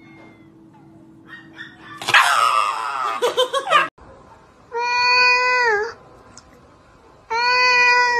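A Shiba Inu screams loudly for about two seconds as it is given an injection. Then an orange tabby cat gives two long meows, each steady in pitch and dropping at the end.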